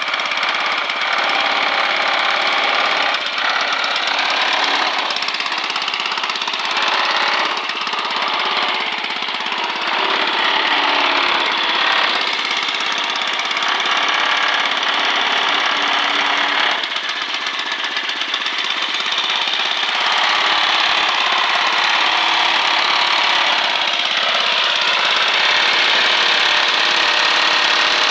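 Small gasoline engine of a miniature Tin Lizzie (Model T-style) car idling, a rapid, steady chugging that dips slightly in loudness a few times.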